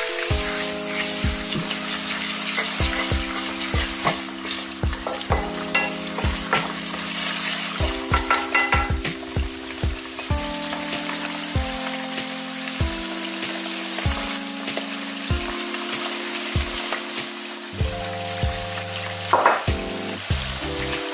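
Minced pork, onion and green onion sizzling in oil in a pan, turned now and then with a wooden spatula. Background music with slow held chords runs underneath.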